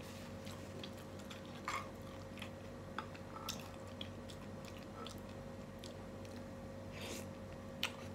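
Quiet chewing of bakso meatballs, with a few short clicks and wet smacks, over a steady low hum.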